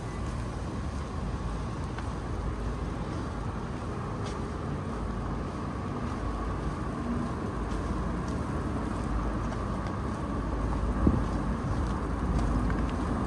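City street traffic noise: vehicles running past in a steady rumble, with wind buffeting the microphone. A single short bump stands out near the end.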